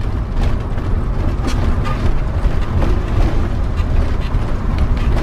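Steady low rumble of a converted bus's engine and tyres heard inside the cab while driving, with a few light rattles or knocks.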